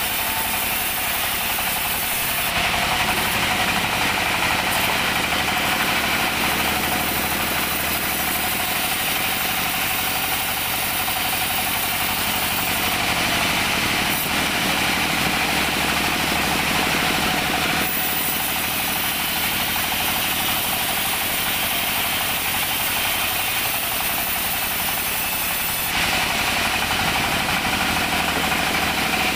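Large vertical sawmill band saw running steadily while its blade rips a teak beam lengthwise, a dense continuous sawing noise. The cut gets louder a couple of seconds in, eases off about two-thirds of the way through, and picks up again near the end.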